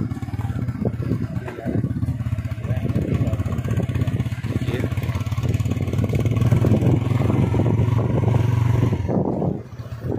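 Motorcycle engine running steadily while riding along a rough dirt track, with knocks and rattles from the uneven ground; the engine sound drops briefly near the end.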